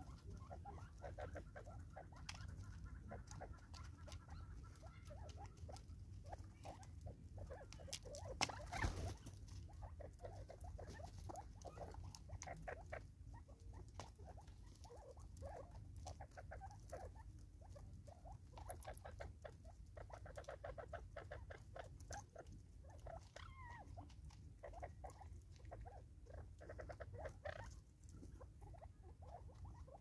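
Natal spurfowl pecking seed from a feeder container: a steady run of rapid, irregular beak taps and clicks, with one louder knock about nine seconds in.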